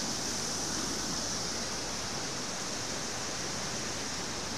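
Muddy floodwater from an overflowing small river rushing across a road, a steady even rush of water.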